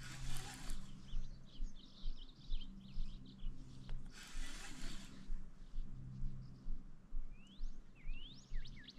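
Small birds chirping and singing, ending in a quick run of rapidly repeated notes. Two brief rushes of noise, at the start and about four seconds in, pass under the calls.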